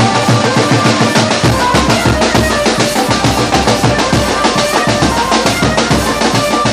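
Loud music driven by a fast, steady drumbeat; a deep bass comes back in about a second and a half in.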